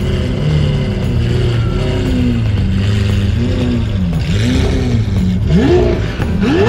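Lamborghini Aventador SV's V12 engine blipping the throttle in short rises and falls as the car rolls off at low speed, with one sharp climb in revs near the end.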